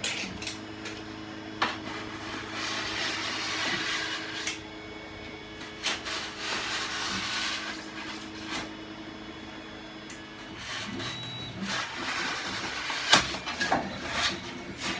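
Utility knife cutting through Styrodur extruded polystyrene foam board, in three drawn-out scraping strokes with a few sharp clicks between them, over a steady low hum.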